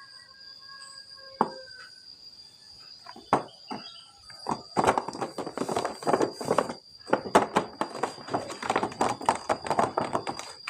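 Toy packaging being handled and opened: scattered clicks and knocks at first, then from about halfway a dense run of crinkling and rustling of plastic and cardboard.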